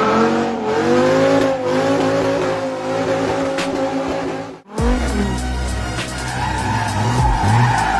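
Cars drifting: engines held at high revs with tyres squealing. The sound cuts off abruptly a little past halfway and jumps to another car's engine and tyre noise.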